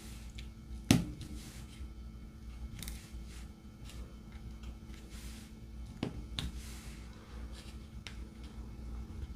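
Scattered light clicks and taps of diamond painting: a drill pen setting resin drills onto the canvas and picking them from the tray. A sharper knock comes about a second in and another about six seconds in, over a low steady hum.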